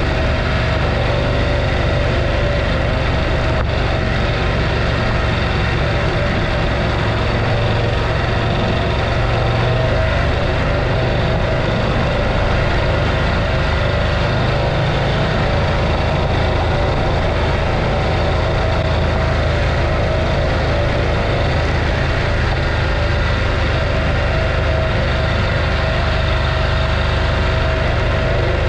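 Adventure motorcycle engine running at a steady pace while riding, mixed with a steady rushing of wind and road noise.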